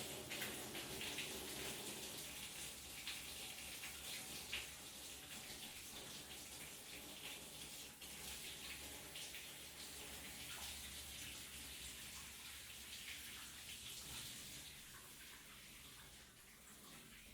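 Shower running, its water spraying and splashing unevenly, growing a little quieter near the end.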